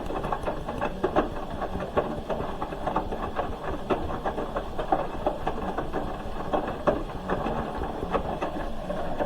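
Hoover H-wash 300 Plus washing machine turning its drum, a steady motor hum with frequent irregular soft knocks as the laundry tumbles.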